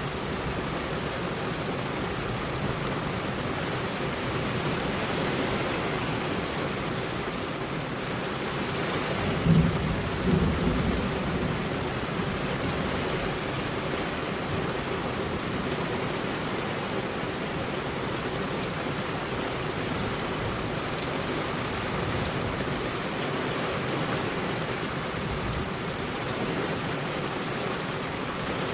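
Heavy rain falling steadily on a road, an even, unbroken wash of noise. About ten seconds in comes a brief, louder low rumble.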